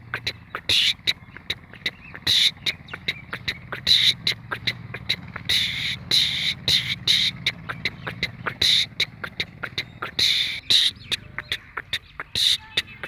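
Small birds chirping, a rapid, irregular stream of short sharp chirps and clicks over a faint steady low hum.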